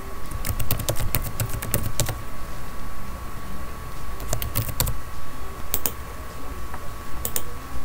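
Typing on a computer keyboard: quick runs of key clicks in two bursts, then a few separate clicks near the end. A faint steady tone runs underneath.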